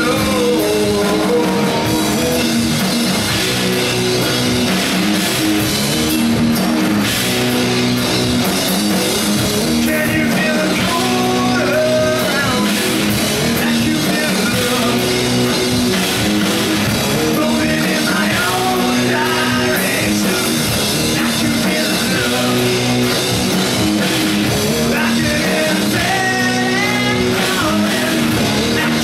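Live rock band playing: electric guitars and a drum kit, with sung vocals over them at several points.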